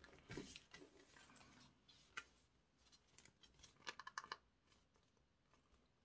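Faint rustling and crisp crinkles of folded origami paper being pressed flat and picked up by hands, with a few sharp little ticks about two seconds in and a short cluster around four seconds in.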